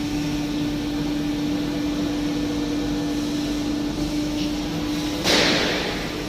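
CNC sheet-metal bending machine running with a steady hum, then a sudden loud rush of noise about five seconds in that fades out within a second.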